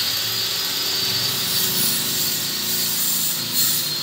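Electric angle grinder running at speed with a steady high whine, its sandpaper disc (glued onto an old CD) rubbing rust off a steel hand-saw blade.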